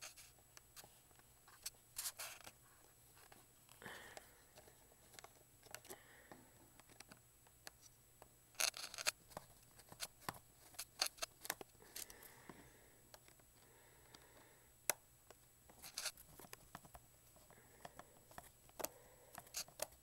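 Small screwdriver working the tiny screws out of a MacBook's RAM cover plate: faint scattered clicks and scratches of tool on screw and metal, with a few louder scraping bursts, the strongest about halfway through.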